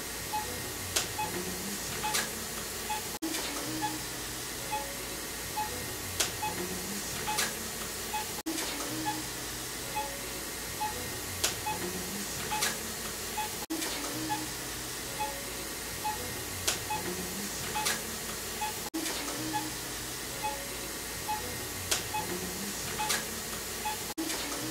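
Soft background music: an electronic loop of low held notes and a light, steady ticking beat that repeats about every five seconds.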